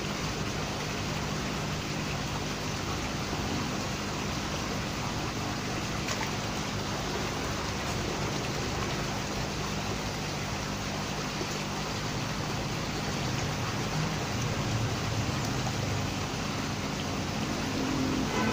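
Water churning and bubbling steadily in a crowded koi holding tank, with a faint low hum underneath.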